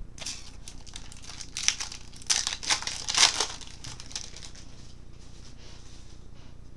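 Crinkling and tearing of a trading-card pack wrapper being ripped open, busiest in the first few seconds and then dying away to light handling.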